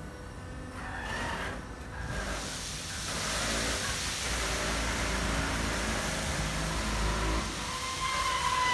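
Wood chips pouring out of the opened floor of an open-top container into a ship's hold: a rushing hiss that builds over the first few seconds, with a low rumble under the heaviest flow. A brief whine near the end.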